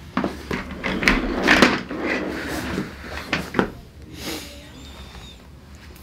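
A series of sharp knocks and rattling clatter. The busiest, loudest stretch comes about one to two seconds in, with a couple more knocks after it before it settles down.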